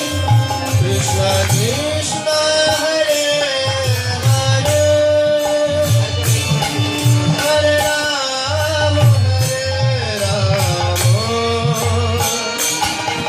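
Indian devotional music: a singing melody of long held notes that slide from one pitch to the next, over a steady hand-drum rhythm.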